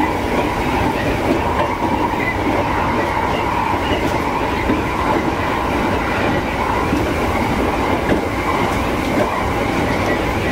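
JR East E231-series electric commuter train running along the line, a steady rumble of wheels on rail heard from inside the front car.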